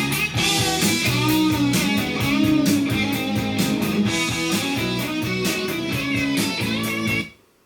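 Guitar music with a steady beat, cutting off suddenly near the end.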